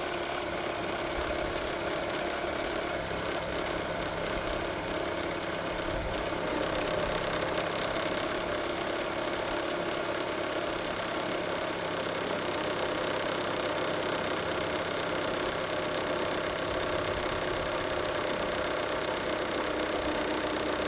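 Mini Cooper Countryman R60's four-cylinder engine idling steadily with the heater on full, warming up while its refilled coolant system bleeds itself.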